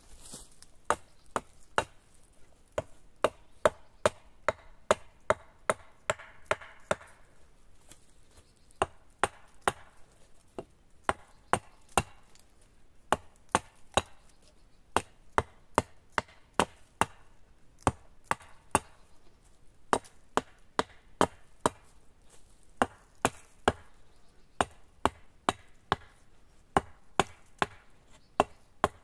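Hatchet chopping into a branch lying on the ground: sharp blows of steel into wood, about two a second, in runs broken by brief pauses.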